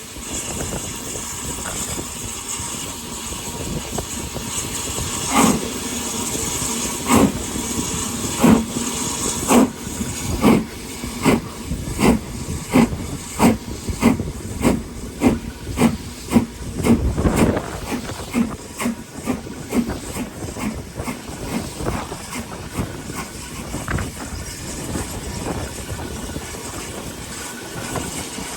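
BR Standard Class 4 4-6-0 steam locomotive 75069 getting under way: a steady steam hiss, then exhaust chuffs starting about five seconds in and quickening steadily, with a low rumble partway through, before the beats fade and the hiss carries on.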